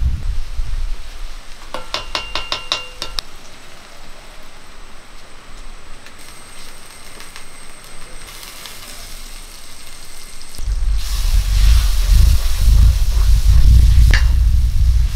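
Onion-tomato masala frying in an iron kadai over a wood fire, stirred with a metal spatula. About two seconds in there is a quick run of ringing metal clinks. A quieter stretch of soft sizzling follows while the pan is covered, and from about eleven seconds on there is loud frying and stirring with a low rumble.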